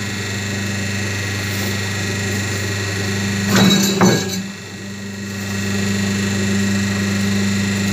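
Double-die paper plate making machine running with a steady hum, with two sharp knocks about three and a half and four seconds in as the dies press.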